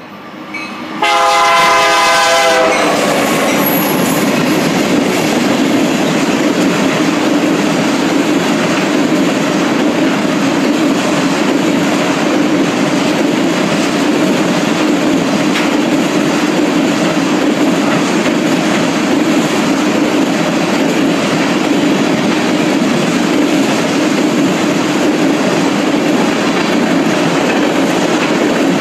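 Freight locomotive horn blast about a second in, lasting about a second and a half as the BNSF-powered oil train reaches the crossing. Then the steady, loud rolling noise of a long string of tank cars passing over the crossing.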